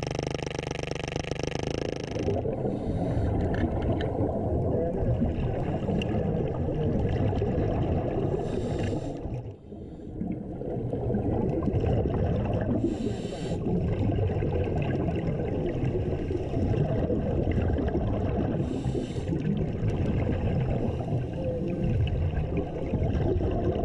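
Underwater pneumatic jackhammer running steadily for about the first two seconds, then a continuous rush of bubbling and gurgling from the divers' helmet exhaust, with a short hiss every four to five seconds as they breathe.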